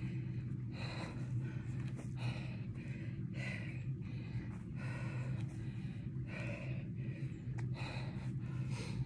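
A woman breathing hard through her mouth from the exertion of lunges, with a sharp out-breath about every second. A steady low hum runs underneath.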